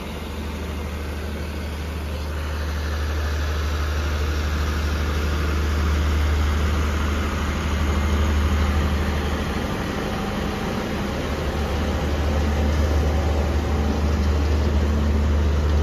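State Railway of Thailand diesel-hauled express train pulling out of the station, its coaches rolling past with a steady deep drone and rumble that slowly grows louder.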